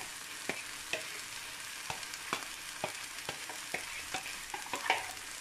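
Chayote and tomato sautéing in a frying pan: a steady sizzle with irregular sharp pops and crackles scattered through it.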